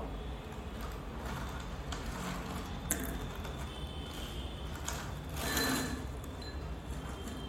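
Small chocolate-filled wafer pillows being poured from their plastic packet into a bowl: a few light clicks, then a short rattling rustle about five and a half seconds in.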